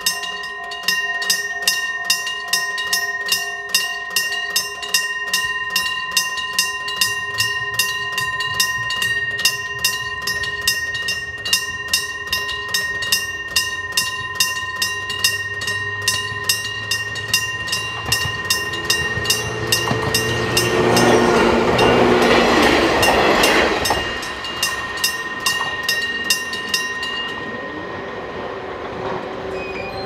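An electric-bell (denshō-type) level-crossing bell is struck mechanically in a steady rhythm, each stroke ringing. A Hokuriku Railroad Ishikawa Line electric train rumbles closer and passes loudly about two-thirds of the way through. The bell stops near the end as the crossing clears.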